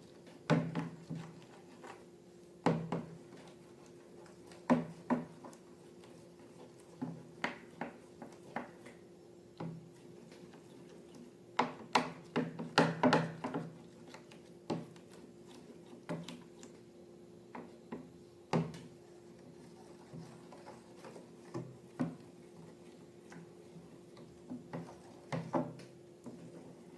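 Handling noises: scattered knocks, clicks and rubs, with a dense cluster about twelve to fourteen seconds in, over a steady low hum.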